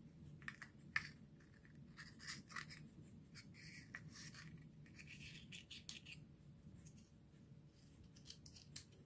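Small scissors faintly snipping and scratching through the leathery shell of a ball python egg, a scattered series of short cuts with one sharper click about a second in, as the egg is slit open.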